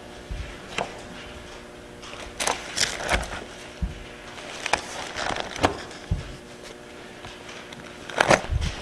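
Bible pages being turned and handled close to a microphone: scattered short rustles and clicks with a few soft low thumps, over a faint steady hum.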